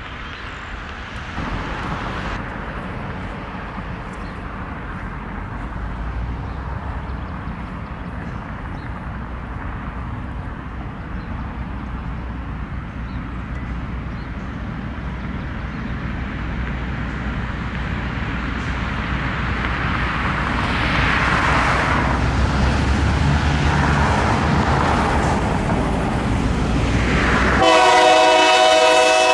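EMD GP9 diesel locomotive approaching with a freight train, its engine rumble growing steadily louder. Near the end its air horn sounds a loud, sustained chord.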